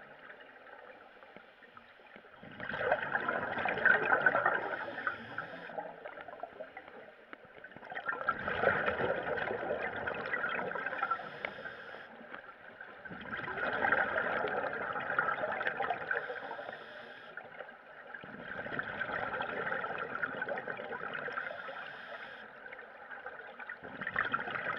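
Scuba diver's exhaled air bubbling out of a regulator underwater, in a burst about every five seconds, one per breath, with quieter stretches between.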